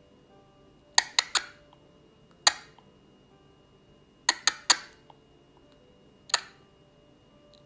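A person making sharp mouth-smacking sounds at a puppy: a quick run of three, a single smack, another run of three, then one more. The smacks are a cue used while touching the puppy and stepping sideways to move it.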